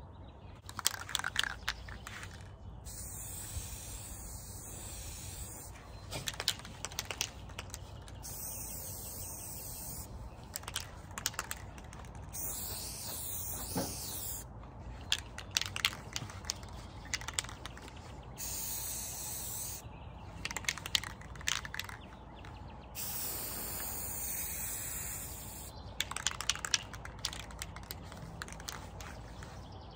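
Rust-Oleum 2X ultra matte spray paint can hissing in about five long, even passes of two to three seconds each. Between passes come short bursts of sharp clicking, the can's mixing ball rattling as it is shaken.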